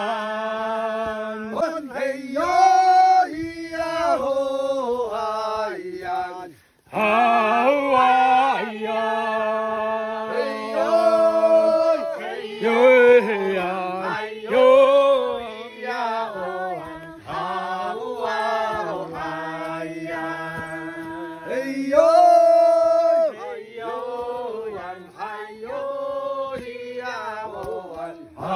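A group of people singing a Tafalong Amis song together, holding long notes phrase after phrase, with a brief break about seven seconds in.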